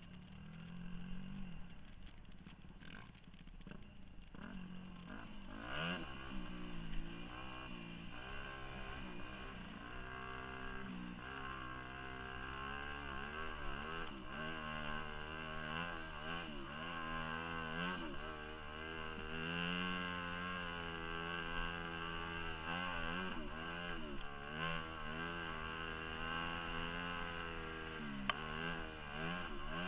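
A 2002 Yamaha YZ250F's four-stroke single-cylinder engine being ridden. It runs quietly at low revs for the first few seconds, then revs up about six seconds in and rises and falls in pitch again and again with the throttle.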